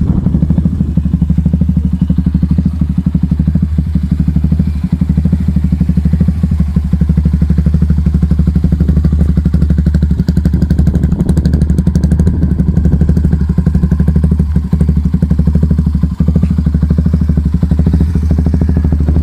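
Suzuki Gixxer SF 250's single-cylinder engine running steadily through a full-system Yoshimura exhaust, with a loud, even exhaust beat. The pitch holds level, with no revving.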